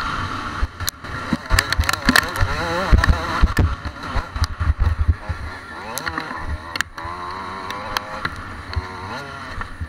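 Dirt bike engine revving up and down as the bike is ridden over a bumpy motocross track, with repeated sharp knocks and rattles from the ruts.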